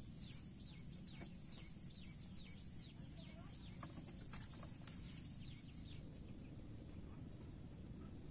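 Faint outdoor ambience: a steady low rumble with many short, quick falling chirps of small birds, and a high steady whine that stops about six seconds in.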